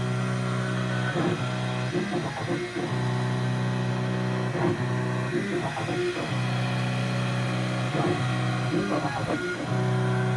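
Background music with guitar: held chords that change every second or two.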